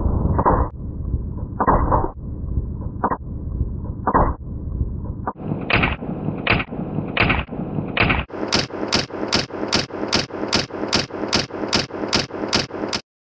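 Shots from an Arsenal SGL31-94, an AK-74-pattern 5.45x39 rifle: about twenty in all, a few spaced shots first, then a steady string of about two and a half shots a second. They sound dull at first and grow crisper, and stop suddenly near the end.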